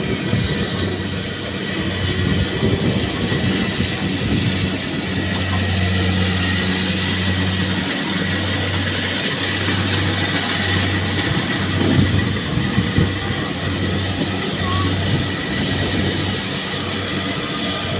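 Rice combine harvester running steadily: a constant engine hum over a broad mechanical noise.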